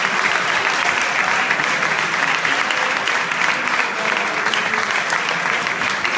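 Audience applauding steadily, dense sustained clapping.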